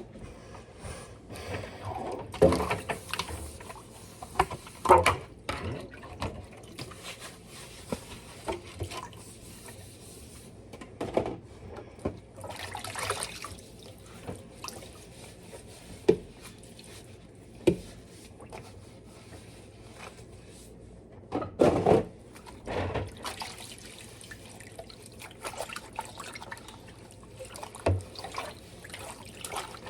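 Washing up at a sink: dishes and utensils knocking and clattering at irregular moments, with short splashes of water.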